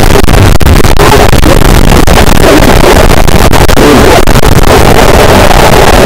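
Harsh noise wall: a constant wall of heavily distorted static at full volume, churning in place without rhythm or pitch, with tiny momentary dropouts flickering through it.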